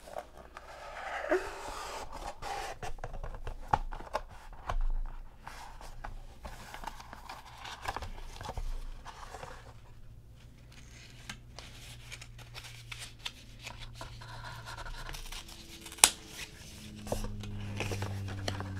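Cardboard packaging being handled: a small box is opened and a black felt-covered case slid out and unfolded, with scraping, rustling and small clicks, and one sharp click a little before the end. A low steady hum comes in near the end.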